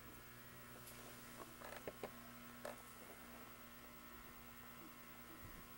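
Near silence: a faint steady electrical hum, with a few faint taps in the first three seconds.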